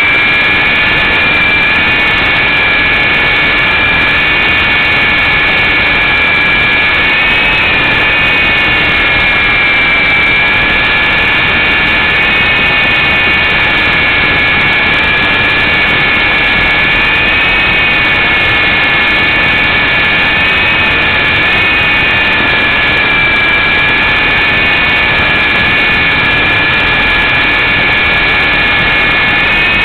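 Syma S033G coaxial RC helicopter's electric motors and rotors whining steadily in flight, heard close up through its onboard camera, with a high whine that wavers slightly in pitch around eight seconds in.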